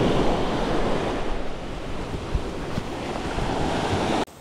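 Sea waves washing onto a pebble beach, with wind buffeting the microphone; it cuts off abruptly near the end.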